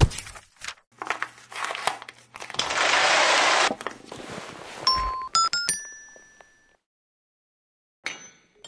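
Sound effects of a chain-reaction machine: knocks and papery rustling, then a loud rush of noise about a second long. About five seconds in, four quick chime notes climb in pitch on a toy xylophone and ring out, followed by a few light clicks near the end.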